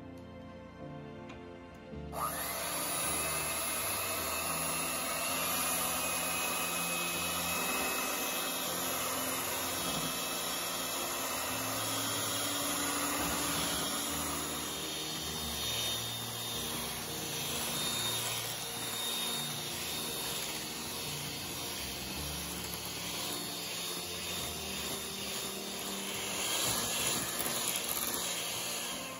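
Electric hand mixer running steadily, its beaters whipping heavy cream until it thickens to stiff peaks. It switches on abruptly about two seconds in, with background music underneath.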